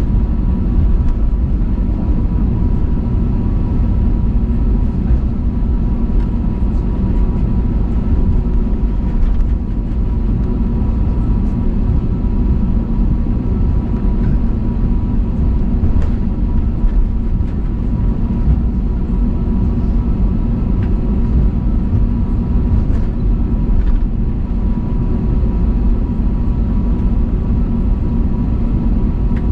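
Steady engine and airflow noise inside the cabin of an Airbus A320neo with Pratt & Whitney PW1100G geared turbofans: a loud, even low rumble with a few constant whining tones over it and the odd faint click.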